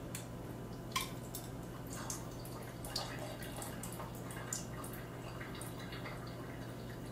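Liquid dripping and trickling from a can of salmon being drained into a kitchen sink, with a few light clicks.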